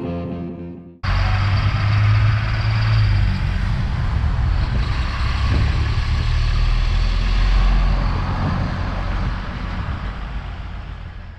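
A heavy vehicle running close by in street traffic: a steady low engine rumble with road noise. It cuts in abruptly about a second in, after guitar music fades out, and fades away near the end.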